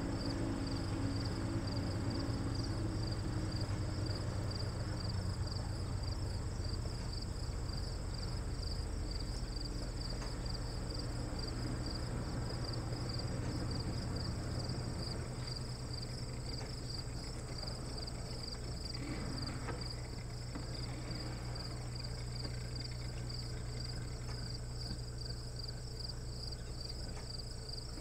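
Outdoor insect chorus: a steady, high-pitched trill that pulses rapidly and continuously, over a steady low rumble that eases slightly after the first several seconds.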